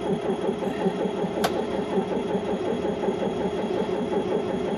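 Scania truck's diesel engine being cranked by its starter motor in hard frost: a steady starter whine over a rhythmic chugging of compression strokes, the engine catching weakly but not starting. The owner suspects the diesel fuel has gelled in the cold.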